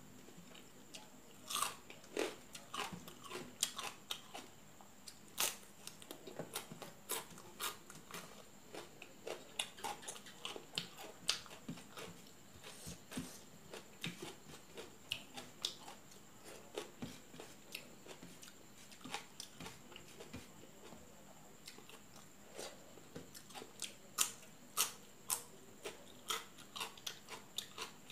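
Close-up mouth sounds of a person eating fish curry by hand: irregular wet chewing, smacking and clicking sounds.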